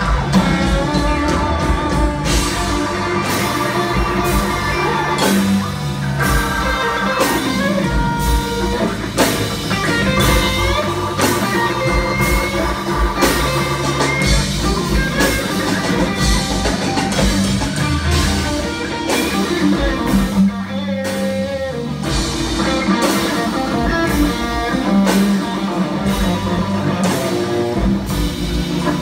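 Live rock band playing: electric guitar to the fore over a drum kit keeping a steady beat.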